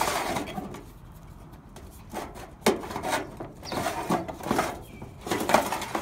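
A long flat strip being worked up and down inside a leaf-clogged downspout, scraping and rubbing against the pipe in several separate bursts, with a sharp knock about two and a half seconds in.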